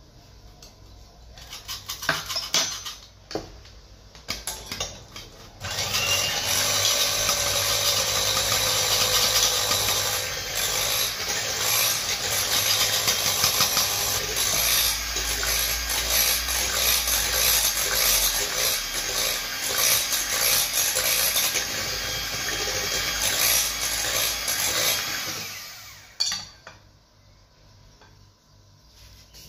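A few clattering taps of a metal cocoa sifter over a glass bowl, then an electric hand mixer with whisk beaters runs steadily for about twenty seconds, beating chocolate cake batter in the bowl, and stops near the end with a click.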